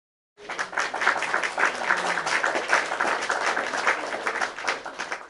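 Audience applauding, a dense patter of many hands clapping that starts about half a second in, tapers off and cuts off abruptly near the end.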